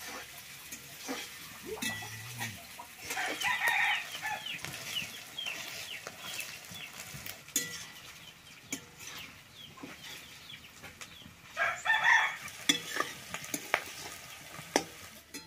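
Metal spatula stirring and scraping vegetables frying in oil in a steel karahi, with light sizzling and scattered clicks of the spatula against the pan. A chicken calls in the background twice, about three seconds in and again near twelve seconds.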